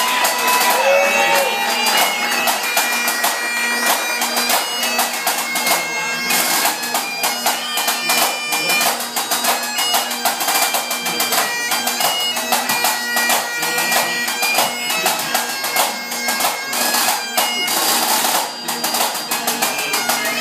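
Pipe band playing: Highland bagpipes playing a tune over their steady drones, with a snare drum and a bass drum beating along.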